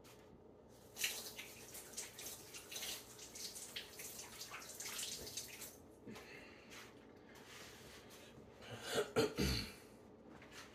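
Faint water running from a kitchen tap for about four seconds, then a dish towel rustling with a couple of soft knocks near the end.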